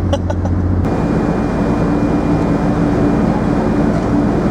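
Steady, loud rumble of a ferry's engines with low humming tones; the sound changes abruptly about a second in.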